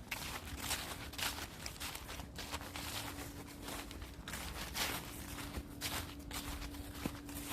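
Footsteps of a hiker walking on a woodland trail, a crunching step about twice a second.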